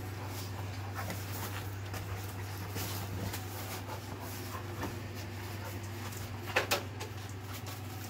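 A Dalmatian puppy and a larger dog playing together on carpet and towels: scuffling with scattered small knocks, and two short, sharp sounds close together about six and a half seconds in.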